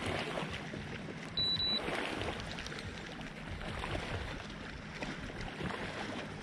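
Water splashing and lapping around a kayak on the water. A short high steady beep sounds about a second and a half in.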